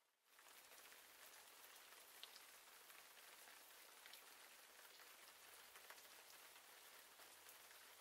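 Faint steady rain: an even hiss dotted with tiny drop ticks, coming in sharply just after the start.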